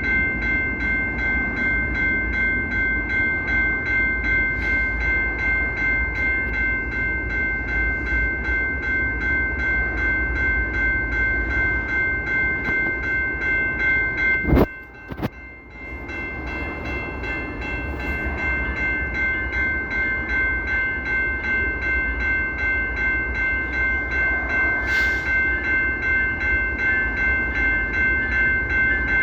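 Locomotive air horn sounding a long held chord over a low pulsing rumble. About halfway through it stops with a sharp click, falls quiet for about a second, then sounds again and holds.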